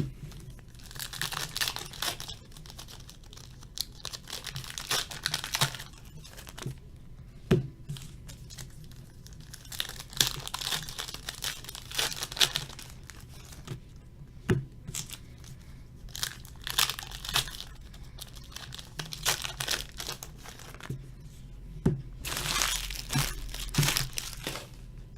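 Trading-card packaging being torn open and crinkled: the wrapping on the last box of cards and its packs ripped and crumpled in repeated bursts of rustling, with a few sharp clicks between them.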